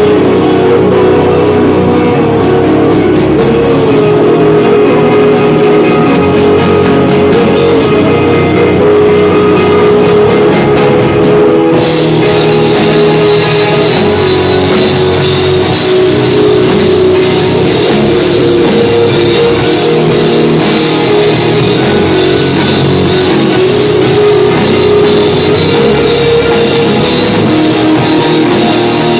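Rock band playing loud live, guitar and drum kit; about twelve seconds in, cymbals come in and the sound fills out.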